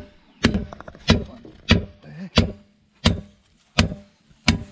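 Hammer striking the buckled lip of a 4WD wheel rim, seven sharp, loud blows at a steady pace of about one and a half a second, bending the rim back so the tyre can be reseated on its bead.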